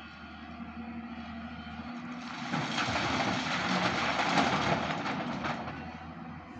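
Heavy machinery running with a steady engine hum; about two seconds in, a loud, rattling rush of noise swells up, peaks, and fades away near the end.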